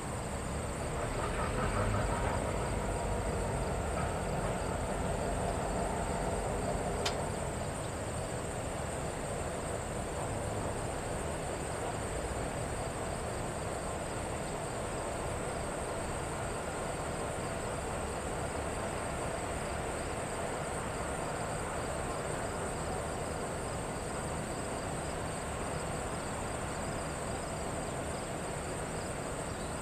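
Insects trilling steadily in a high, even chorus over a low rumble that eases after the first several seconds. There is a single sharp click about seven seconds in.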